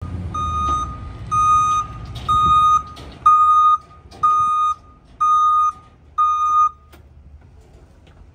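Backup alarm on a small Ford split-body garbage truck beeping seven times, about one beep a second, while the truck reverses, over the low rumble of its engine. The beeping stops about seven seconds in, when the truck halts.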